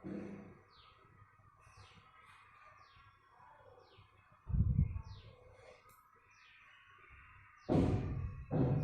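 A bird calling over and over, a short falling chirp about once a second. Dull thumps come about halfway through and twice near the end.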